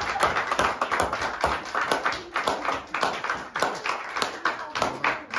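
Hand clapping from a small group: quick, irregular claps that thin out and soften toward the end.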